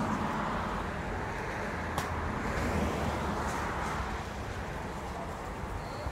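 Steady outdoor traffic noise, a low rumble under an even hiss, with a single sharp click about two seconds in.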